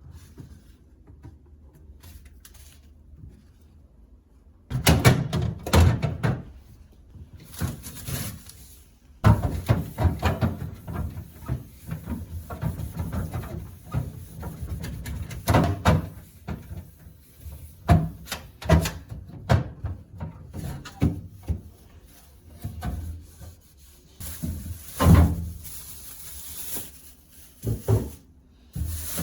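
Kitchen cleaning: a run of knocks and clatter as dishes, containers and cupboard doors or drawers are handled and set down.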